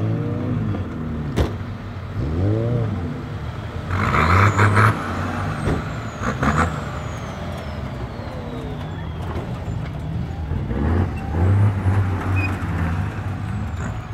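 Rayton Fissore Magnum 4x4's engine revving up and dropping back again and again as it crawls over dirt mounds off-road, with a louder burst of noise about four seconds in.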